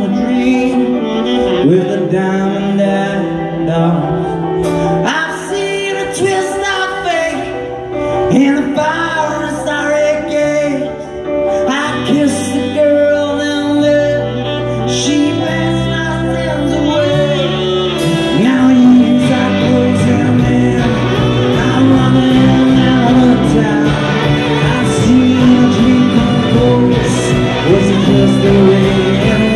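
Rock band playing live with singing over electric guitar, electric keyboard, bass and drums. The band gets fuller and a little louder just past the midpoint.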